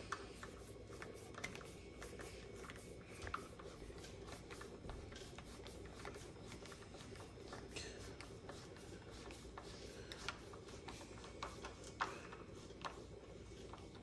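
Faint, irregular clicking and rubbing of a hand-turned Phillips screwdriver driving a wood screw through a deadbolt latch plate into the door edge.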